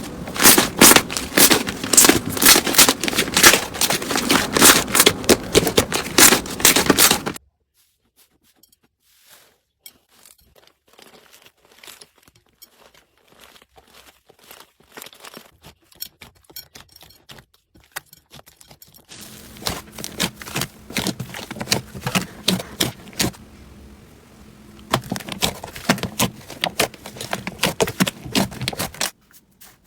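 Slime being squished and pressed by hand, giving a dense run of crackling pops and clicks. It is loud for the first seven seconds or so, much fainter through the middle, and louder again for most of the last ten seconds.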